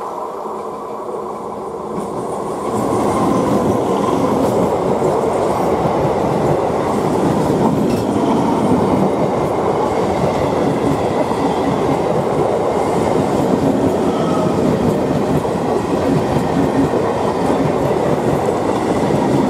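Electric multiple unit (EMU) suburban local train running past close by at speed, its wheels rolling over the track. It grows louder about three seconds in as the train reaches the spot and stays loud while the coaches go by.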